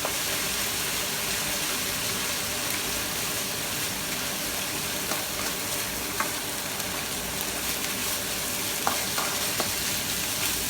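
Minced pork with garlic, chilies and onions sizzling steadily in a hot pan while being stir-fried, just after oyster sauce has gone in. A few faint clicks sound about six and nine seconds in.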